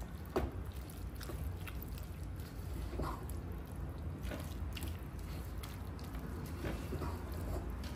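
Spoon stirring a thick sauce of ham, tomato and pepper in a pan: soft wet squishing with scattered light clicks, over a steady low hum.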